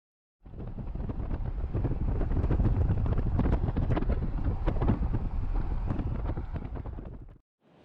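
Wind buffeting the microphone: a loud low rumble with crackles, starting suddenly and cutting off abruptly near the end.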